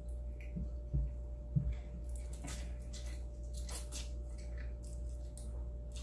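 Wet mouth sounds of someone eating spaghetti: a few soft low thumps in the first two seconds, then scattered wet clicks and smacks of chewing. A steady hum runs underneath.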